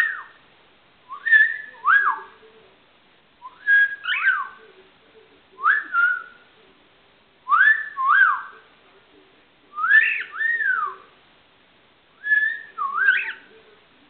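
A person whistling a short repeated phrase to a pet cockatiel: a held note followed by quick up-and-down swoops, about every two seconds.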